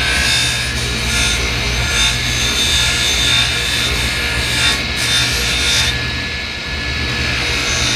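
Bench grinder running with a Scotch-Brite wheel, the cast aluminum hammer handle pressed against it in passes: a steady motor hum under a rasping rub that swells and eases as the metal is pushed on and drawn back, dropping off briefly about five seconds in. It is the abrasive wheel smoothing out light dents and scratches in the aluminum.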